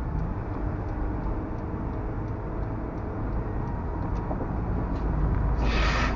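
Steady road noise and engine drone heard from inside a car cruising on a highway, with a short burst of hiss near the end.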